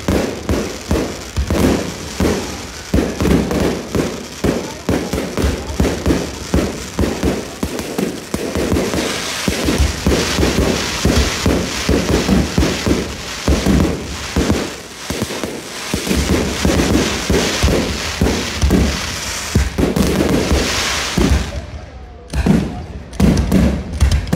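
Fireworks display firing in rapid volleys, several bangs a second, with stretches of dense crackle. Near the end the firing thins out to a few separate loud bangs.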